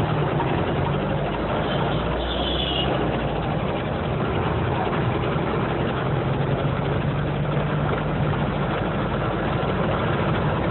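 A large vehicle's engine running steadily with road noise, heard from inside the cab while driving along an open road. A faint, brief high sound comes about two seconds in.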